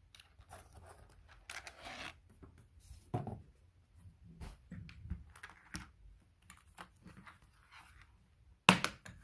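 Keyboard packaging being handled and opened: scattered light rustling, scraping and crinkling, with one brief louder noise near the end.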